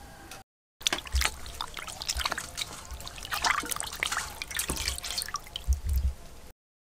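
Hands sloshing and rubbing raw pork in a stainless steel bowl of water, with many irregular splashes and drips as pieces are lifted out, starting about a second in.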